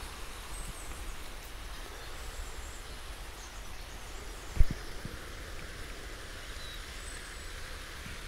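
Steady outdoor background hiss with a few faint, high bird chirps. There is one short low thump about halfway through.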